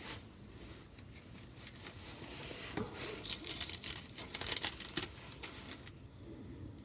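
Paper receipt rustling and crinkling as it is handled and unfolded, with a patch of quick crackles about midway.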